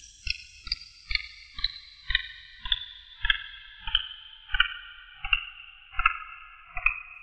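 A synthesized ticking pulse from the film's sound design: a pitched ping with a low thump under each beat, slowing down and falling in pitch, from about two and a half beats a second to just over one a second by the end.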